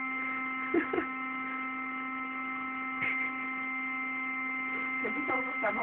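Electric air pump running with a steady, even hum as it inflates an airbed. A few short faint sounds come over it about a second in, at three seconds and near the end.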